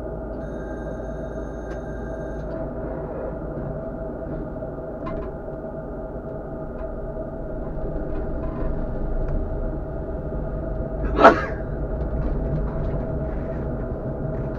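Tatra KT4D tram running on its rails, heard from the driver's cab: a steady low rumble with a faint hum, growing louder about eight seconds in. About eleven seconds in comes one brief, loud, sharp sound.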